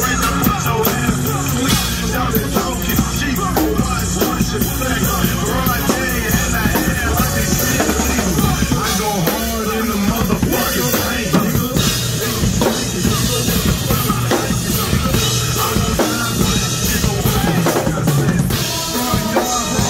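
Drum kit played live, with bass drum, snare and cymbal hits throughout, over recorded backing music from a loudspeaker.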